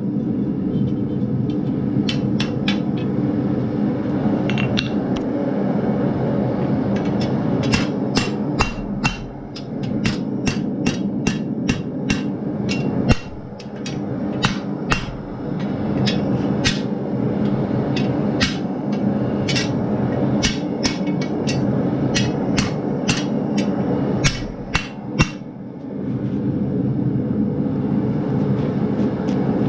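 Hammer blows on a red-hot steel bar at an anvil as it is bent over the hardy hole and the anvil's edge. The blows come in irregular runs with short pauses, over a steady low roar.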